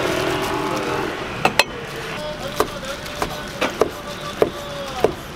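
Cleaver chopping steamed sundae (Korean blood sausage) on a wooden cutting board: a run of sharp knocks roughly every half second, starting about a second and a half in, over a steady engine hum.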